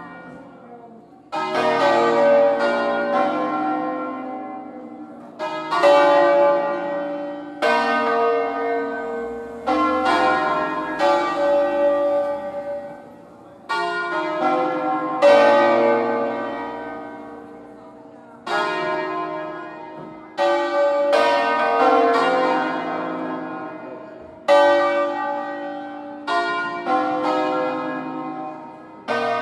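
Full peal of a five-bell concert in B-flat, cast by Felice Bizzozero in 1859, rung by hand with the bells swinging on their wheels. Strokes from the different bells come in uneven clusters every few seconds, each one ringing on and slowly fading.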